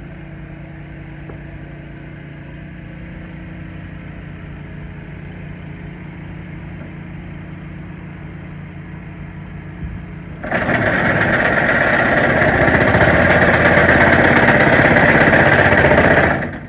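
An excavator's diesel engine runs steadily. About ten seconds in, the excavator-mounted vibratory pile hammer starts up with a loud, rapid rattling buzz as it drives a vinyl sheet pile into the ground, and the sound cuts off near the end.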